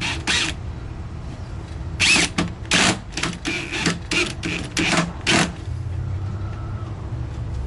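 Power drill drilling pilot holes in plywood cabinet panels: several short bursts on the trigger, then a steady run from near the end.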